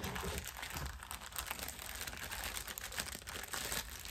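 Packaging of a mail-order parcel crinkling and rustling as it is handled and turned over to find the opening: a dense, continuous run of small crackles.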